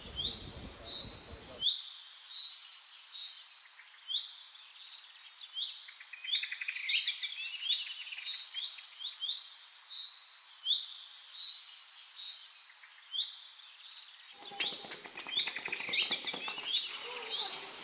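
Small songbirds singing and chirping continuously, with quick repeated trills and chirps, with low background noise joining in near the end.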